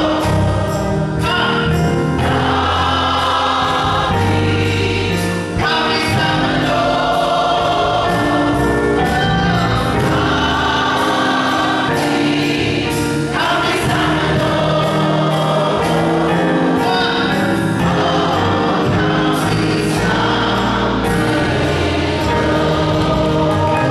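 Gospel choir singing in full voice over keyboard accompaniment, with a steady percussive beat.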